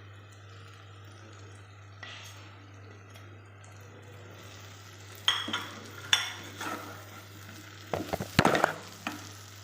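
Prawn masala frying in a pan with a faint sizzle, then a spoon stirring it, scraping and knocking against the pan in several strokes from about five seconds in, loudest near the end.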